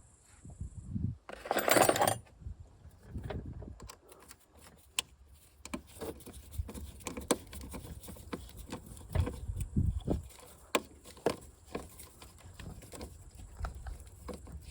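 Metal tools and parts clinking and knocking at irregular intervals during hands-on car repair work, with a brief loud rush of noise about a second and a half in.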